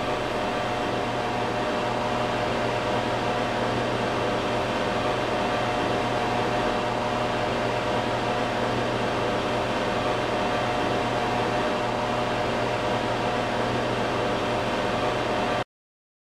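Microwave oven running: a steady hum with a low tone under a fan's even whir, which cuts off suddenly near the end.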